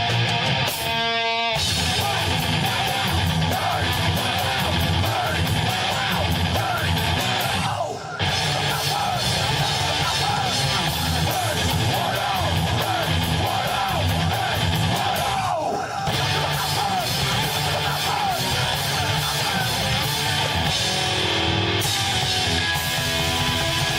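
Live rock band playing loud, with electric guitar to the fore. The music drops out for an instant twice, near a third of the way in and again about two thirds of the way in.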